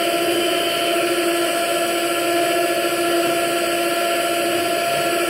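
Electric mixer running at a steady speed, beating cake batter in a bowl.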